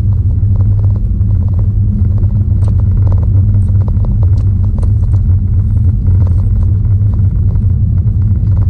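Scattered faint clicks and smacks of someone chewing and eating, over a loud steady low rumble.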